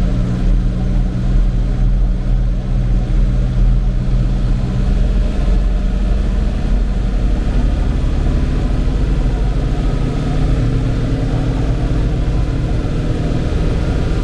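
A vehicle engine running steadily under way, its note shifting slightly about six seconds in.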